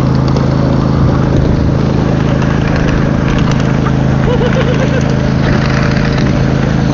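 Steady engine drone of a ride-on miniature train running along its small-gauge track, with a few faint clicks over it.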